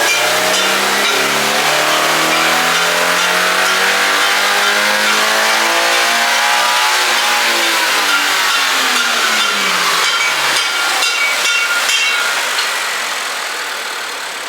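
Toyota GR86's 2.4-litre flat-four at wide-open throttle on a hub dyno, its note climbing steadily in pitch for about seven seconds on a full power pull. The revs then fall off and the engine settles back down near the end.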